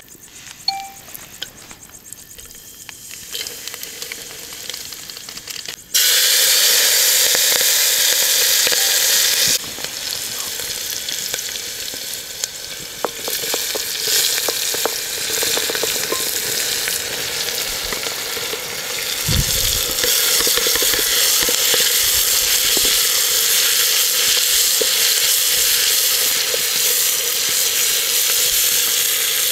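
Sliced onions frying in hot oil in an open pressure-cooker pot over a wood fire. Quiet at first, then a sudden loud sizzle about six seconds in as the onions go into the oil. The sizzle keeps going while they are stirred with a wooden spatula.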